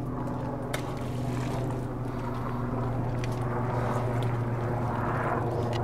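Steady low engine drone that grows slightly louder toward the end, with a few light clicks and knocks of handling.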